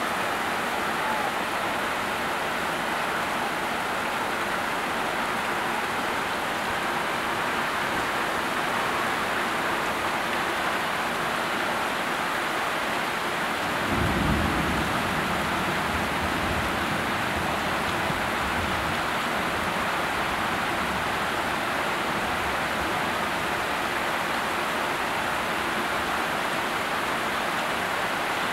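Heavy rain falling steadily onto standing floodwater, an even hiss of drops on water. About halfway a low rumble sets in and dies away over several seconds.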